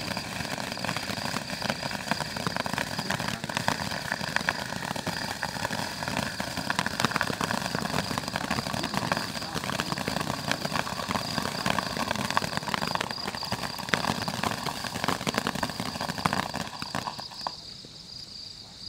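Handheld firework wand (Dominator DM759 hand torch) spraying sparks, a steady hiss full of dense crackling, which dies down near the end as the wand burns out.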